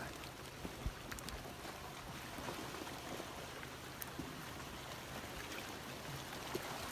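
Floodwater rushing in a steady, even wash of noise, with a few faint knocks.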